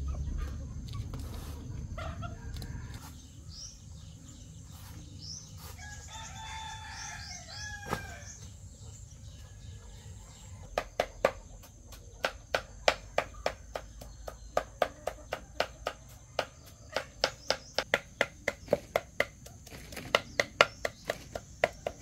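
A rooster crows once, about six seconds in. From about eleven seconds on, a knife chops steadily through soft banana stem onto a wooden block, two to three sharp strikes a second.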